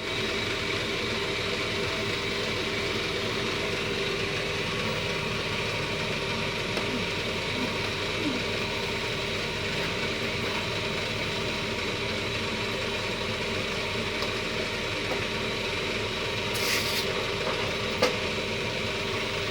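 Cotton candy machine running on test, its motor spinning the head with a steady hum and whine. There is a short hiss about sixteen seconds in and a single click near the end.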